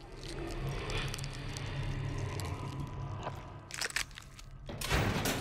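Crunching and chewing as a man bites into a scorpion, with two loud crunches about four and five seconds in, over a steady low background hum.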